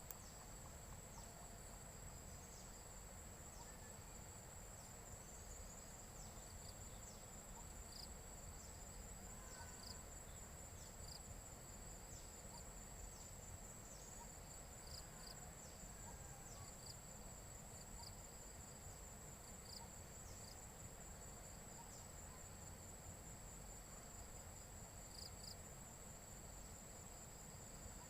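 Insects trilling in a faint, continuous, high-pitched drone, with short chirps from another insect every second or two.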